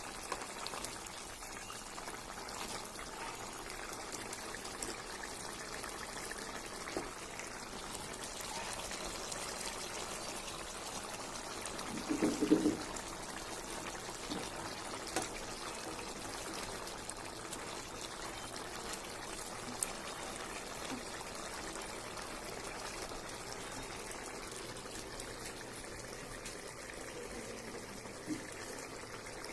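Fish curry simmering in a pan: a steady bubbling hiss with small scattered clicks, and one brief louder sound about twelve seconds in.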